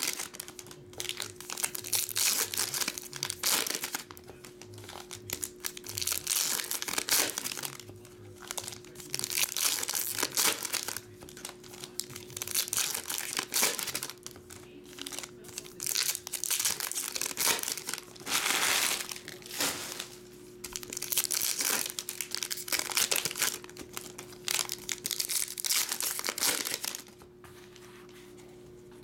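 Foil trading-card pack wrappers crinkling in repeated bursts as the packs are opened and handled, over faint background music.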